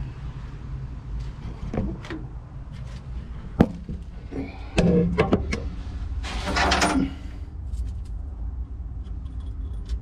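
Hand work with small metal fittings: scattered clicks and knocks, one sharp click a few seconds in, then knocking and a short scraping rush about six seconds in, over a steady low hum.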